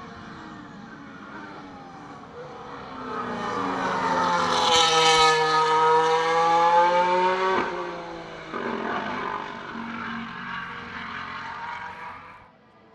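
Mercedes-AMG W14 Formula 1 car's turbocharged V6 hybrid engine running at speed. It grows loud as the car approaches and passes, with the pitch dipping and climbing, and is loudest about five to seven seconds in. It breaks off shortly after, then comes back quieter and cuts off shortly before the end.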